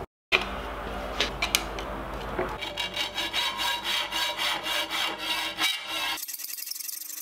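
Hand hacksaw cutting metal stock held in a bench vise. A few clicks at first, then from about two and a half seconds in a steady run of rasping back-and-forth strokes, about three a second.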